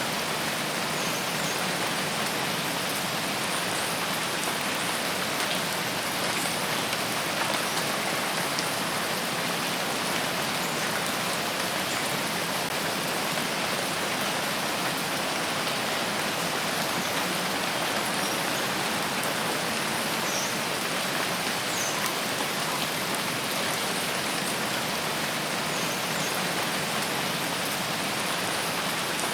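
Steady rain falling on a forest, an even hiss with faint scattered drop ticks.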